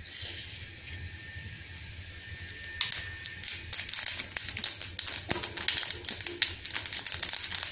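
Mustard seeds in hot oil in a non-stick kadai, sizzling softly at first, then crackling and popping in many quick pops from about three seconds in, as the seeds begin to splutter.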